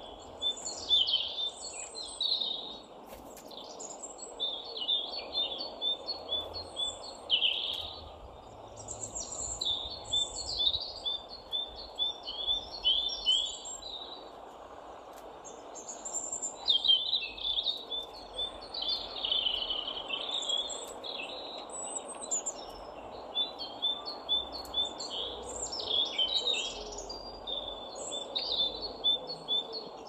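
Small songbirds singing in bursts of rapid, high chirps and trills over a steady low background hum.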